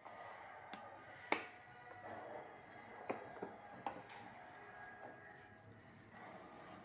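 Light kitchen handling noises: several sharp clicks and knocks, the loudest just over a second in and a cluster between about three and four seconds, over a low steady background.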